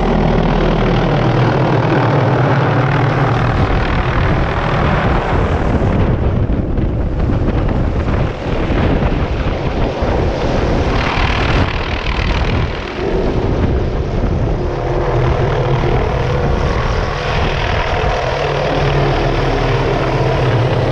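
Helicopter in flight: loud, steady turbine and rotor noise with a low, even drone underneath.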